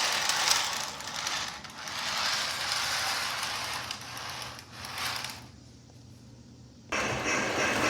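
O scale model train cars rolling and clattering on the track in uneven spells of a second or two while the consist is being hooked up. About seven seconds in, after a short lull, a louder steady running sound with a low hum starts suddenly.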